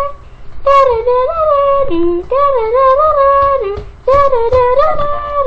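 A high voice sings a wordless tune in long held notes that slide up and down between pitches, in three phrases with short breaks between them.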